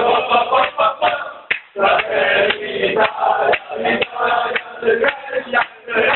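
Crowd of football supporters, mostly men, chanting and singing together.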